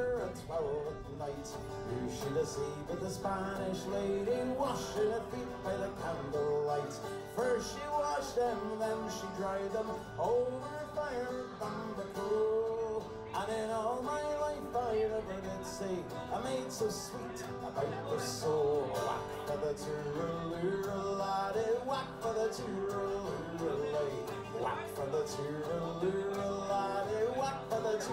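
Background music with plucked acoustic guitar playing a moving melody.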